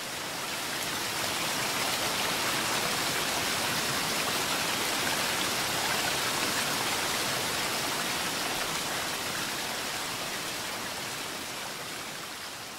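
Steady rushing water noise, swelling slightly at first and fading slowly near the end.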